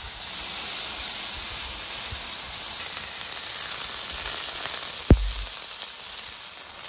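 Freshly smashed thin beef burger patties sizzling steadily on a hot flat-top griddle. A single sharp knock about five seconds in.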